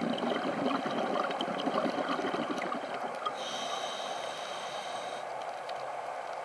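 Scuba diver breathing through a regulator underwater. A bubbling exhalation fills about the first three seconds, then an inhalation through the regulator comes with a high whistling hiss that stops about two seconds later.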